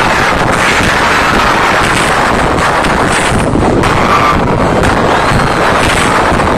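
Concert crowd screaming loudly and continuously, overloading a phone's microphone so that it comes through as a steady, distorted rush of noise.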